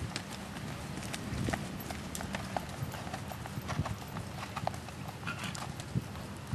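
Hoofbeats of a ridden horse moving over a dirt arena: a steady run of dull knocks.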